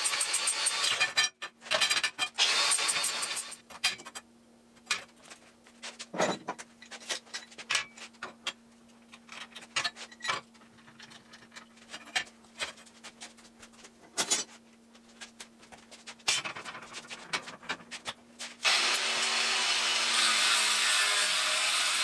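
Cordless angle grinder cutting steel bar, stopping about three seconds in. Then scattered clanks and clatter as steel bars are handled on a steel welding table, over a faint steady hum. Near the end the grinder starts cutting steel again with a steady, even noise.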